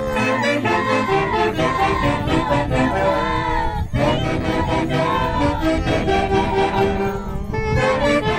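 Andean orquesta típica playing a festival dance tune, led by saxophones in unison melody, with a short break about four seconds in.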